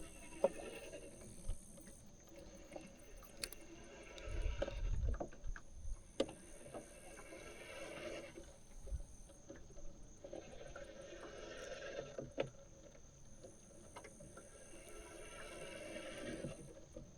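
Quiet fishing-boat sounds: scattered light clicks and a few soft knocks, with a faint steady high-pitched tone behind them.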